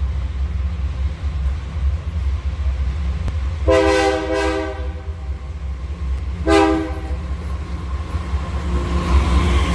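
Diesel locomotives of a freight train approach with a steady low engine rumble. The air horn sounds one long blast about four seconds in and a short blast about two seconds later. Near the end, wheel and rail noise rises as the lead locomotive passes close.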